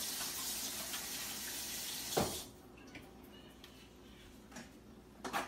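Kitchen sink faucet running while hands are washed under it. It is turned off a little over two seconds in with a thump, followed by a few faint clicks and a short knock near the end.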